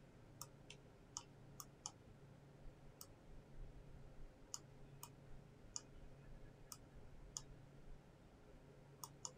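Near silence with about a dozen faint, light clicks at uneven intervals, over a faint steady low hum.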